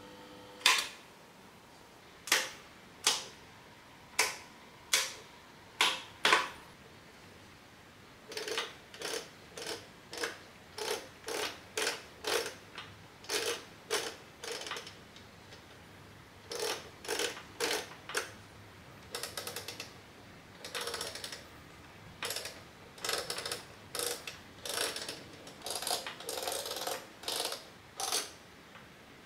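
Metal controls of an Odyssey U-010 stereo amplifier being worked by hand, a series of crisp mechanical clicks. A single loud click comes just under a second in as the mains push button is pressed, then several separate switch clicks follow. After that come runs of quicker clicks, about two a second, as the heavy aluminium knobs are turned through their detents.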